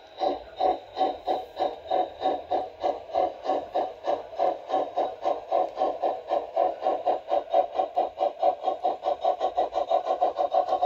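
G-scale model steam locomotive "Kleine Dicke" chuffing as it pulls its passenger car, the chuffs speeding up steadily from about two or three a second to about five a second as the train gathers speed.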